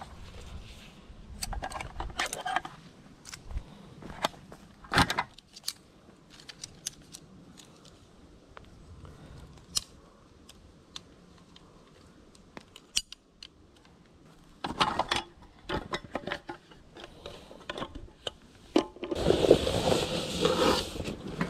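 Aluminium poles of a folding camping chair clicking and clattering as the frame is unfolded and fitted together, in scattered sharp knocks. Near the end, a burst of crinkling plastic and rustling as things are pulled out of a backpack.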